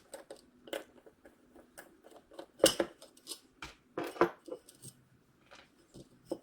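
Metal alternator parts and hand tools clinking and knocking as they are handled and set down. The strikes are irregular, with the loudest about two and a half seconds in and another cluster about four seconds in.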